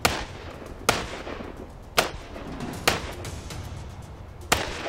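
Glock 45 9mm pistol firing five shots at a steady pace, about a second apart, with a slightly longer pause before the last one.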